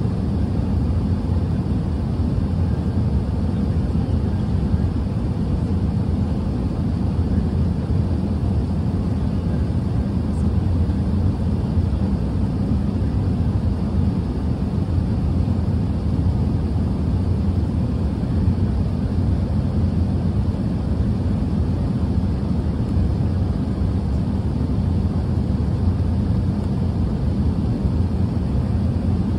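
Steady low cabin roar of an Airbus A380 airliner in flight, engine and airflow noise heard inside the cabin at a window seat.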